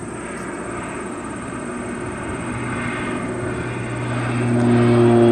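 Crop-spraying airplane's propeller engine running steadily in flight, growing louder near the end as the plane comes closer.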